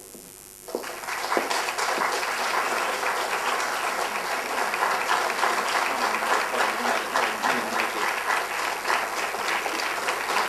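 Audience applauding, breaking out about a second in and carrying on as a steady, dense clapping.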